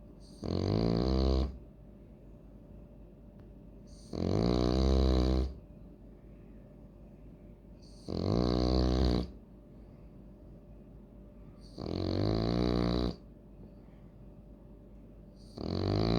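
French bulldog snoring in its sleep: five loud, rasping snores, each about a second long, coming at a slow even rhythm of about one every four seconds.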